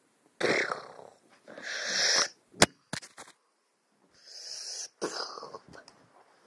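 A toy Nerf blaster being fired: a sharp snap about two and a half seconds in, then two lighter clicks. Several breathy hissing bursts come before and after it.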